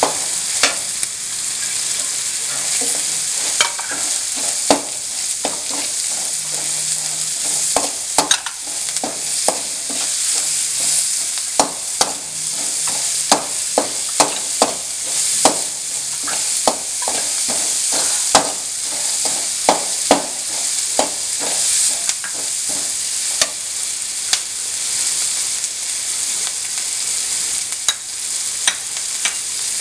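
Chopped onion and spices frying in hot coconut oil with a steady sizzle, while a spatula stirs and scrapes the pan, knocking against it irregularly, about once or twice a second.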